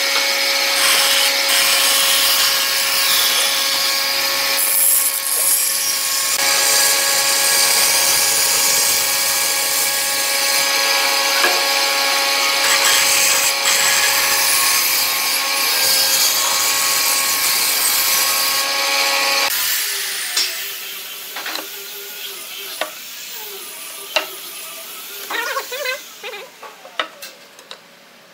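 Bandsaw running with a steady hum while its blade cuts through a wooden workpiece. About twenty seconds in, the saw is switched off and the sound drops away, leaving a few light knocks and clicks.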